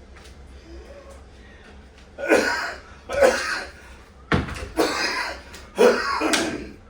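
A person coughing: four loud coughs in a row, the first about two seconds in, each about half a second long.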